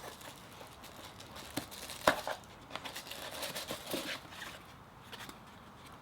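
Hands unpacking a lens box: crinkling and rustling of the packaging, with scattered small clicks and one sharper knock about two seconds in.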